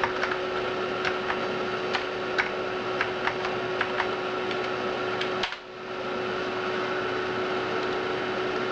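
Steady whir and hum of an Amiga 4000's hard drive and power supply, with a constant tone running through it. Over about the first five seconds there is an irregular run of light clicks.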